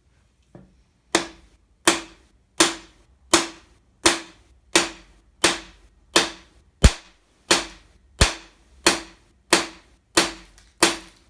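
Hammer blows on a bearing driver, driving a cam bearing in an Allis Chalmers engine block. About fifteen sharp, evenly paced strikes, a little under one a second, each with a short metallic ring.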